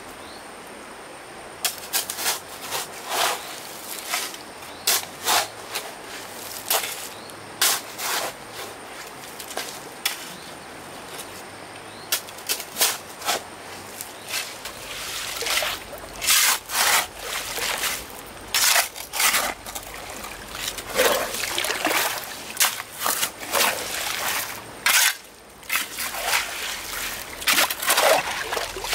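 Water splashing and sloshing in short, irregular bursts, starting about two seconds in and coming more often in the second half, as from hands, a tool or fish moving in shallow water.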